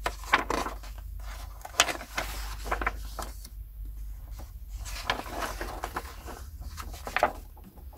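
Hardback books being handled and slid against one another: paper dust jackets rubbing and scraping, with small knocks, the sharpest about two seconds in.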